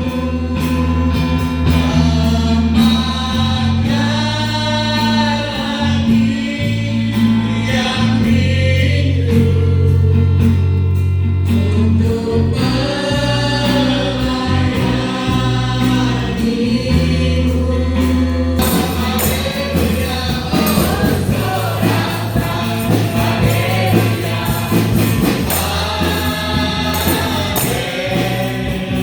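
Background song: sung, choir-like vocals over a sustained bass line. The arrangement grows fuller and brighter about two-thirds of the way through.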